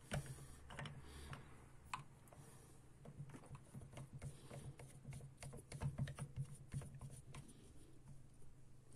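Faint, irregular clicks and taps of hands handling a torch and its plastic scope-mount clamp, setting the torch into the clamp's jaws.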